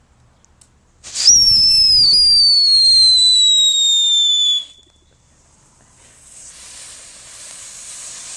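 TNT Triplane Attack ground firework going off. About a second in, a loud whistle starts and slowly falls in pitch for some three and a half seconds, then stops. After a short pause, a quieter hiss of spraying sparks builds up.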